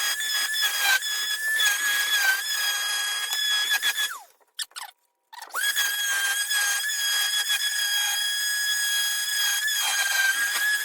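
High-pitched whine of an electric power tool's motor running at speed. It winds down about four seconds in, then spins back up after a short pause and runs steadily on.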